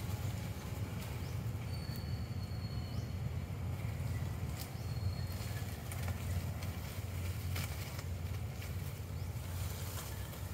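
Leaves rustling and twigs crackling in short, scattered bursts as monkeys clamber through undergrowth and thin saplings, over a steady low rumble. A faint high whistle sounds twice in the first half.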